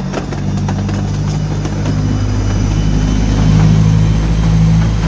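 Miniature railway train under way: a steady engine drone over the low rumble of the wheels, growing louder about three and a half seconds in.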